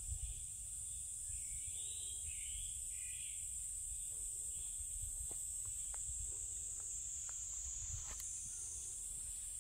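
Steady high-pitched drone of insects in summer woodland, with three short warbling bird calls about two seconds in. A low rumble and a few faint clicks sit underneath.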